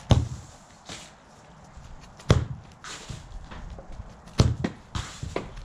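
Football being kicked hard on grass: three loud, sharp thuds about two seconds apart, with softer knocks and rustles in between.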